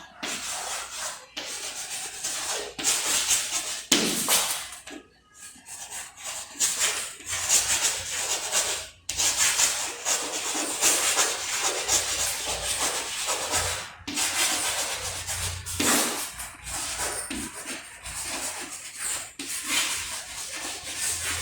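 Scratchy rubbing strokes of handwriting on a board or paper, in irregular runs with short pauses.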